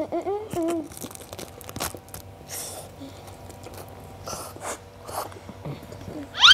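Children eating: crunching on a sheet of roasted seaweed (nori) and slurping instant cup noodles, with scattered crackly chewing noises. A short wavering hum opens it, and a brief rising squeak near the end is the loudest sound.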